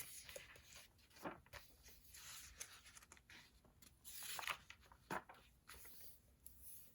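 Faint, irregular scratching and rustling of paper, several short strokes a second or so apart, the sound of writing and handling pages at a desk.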